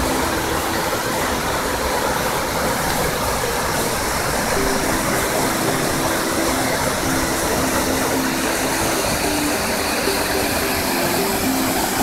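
Tall waterfall plunging into a pool: a steady rush of falling water. A melody of background music drops out at the start and comes back about five seconds in.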